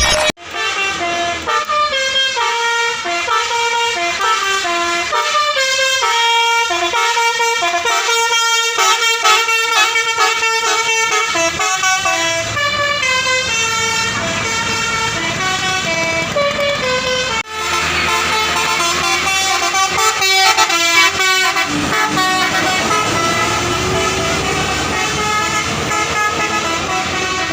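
Bus 'telolet basuri' multi-tone horn playing melodies in quick stepped notes. A brief cut comes a little past halfway, then more horn tunes with more road noise under them.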